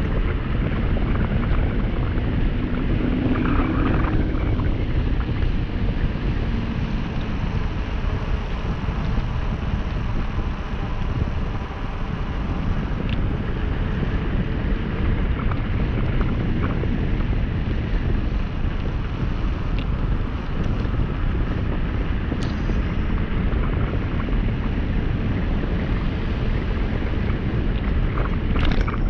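Steady wind buffeting the microphone of a mountain bike rolling fast downhill on a paved and gravel road, with tyre rumble and a few brief clicks from the bike.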